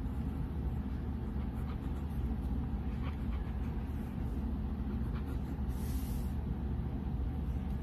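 Steady low rumble with a few faint scratches of a ballpoint pen drawing on sketchbook paper, and a brief hiss about six seconds in.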